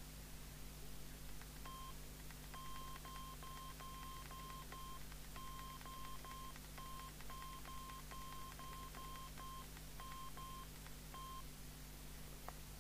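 Key beeps from a PNI HP55 CB radio as the buttons on its handset microphone are pressed over and over: about twenty short beeps, all at the same pitch and unevenly spaced, with faint clicks and a steady low hum underneath.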